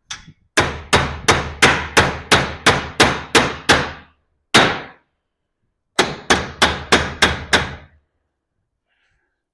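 Hammer striking a steel garage door vertical track, closing the opened track back around a roller. There is a quick run of about ten ringing metal blows, a single blow, then six more.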